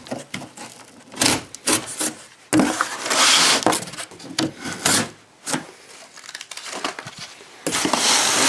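Scissors cutting roll corrugated cardboard: a run of short cuts and two longer stretches of cutting, about three seconds in and near the end, mixed with the cardboard being handled.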